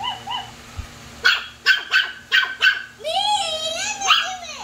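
Battery-operated toy dog barking: a run of short, near-identical yaps, about three a second, starting about a second in, then a wavering whine, then yapping again.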